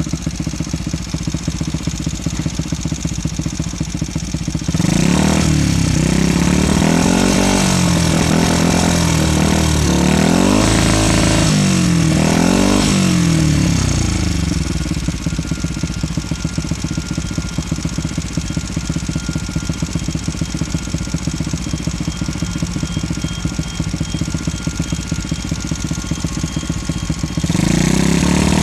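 Honda Monkey's 88cc single-cylinder four-stroke engine, breathing through an oval aftermarket silencer with a baffle in the outlet, idling steadily. About five seconds in it is revved up and down several times in quick succession, then settles back to idle, and it revs up again near the end. The exhaust note stays subdued even when revved, which the owner calls really quiet.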